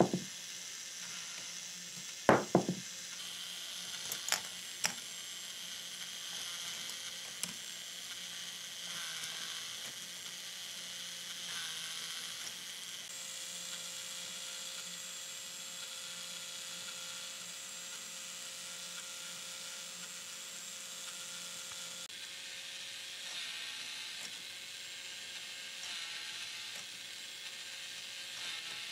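K'nex battery motor driving the plastic gears and rotating lift of a ball machine, a steady whirring grind. A few loud plastic knocks from the balls, twice about two seconds in, a pair around four to five seconds in and one about seven seconds in.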